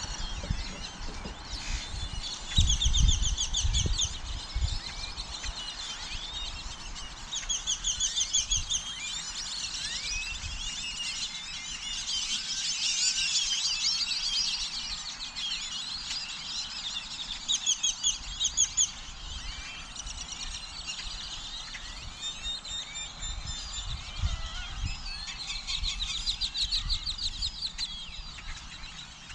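Birds calling and chirping, with several rapid high trills about a second long each and a busy spell of overlapping calls partway through. There are some low thumps in the first few seconds.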